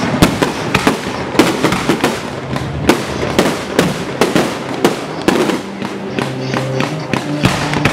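Fireworks display: aerial shells bursting in a rapid run of sharp bangs and crackle, about two or three a second.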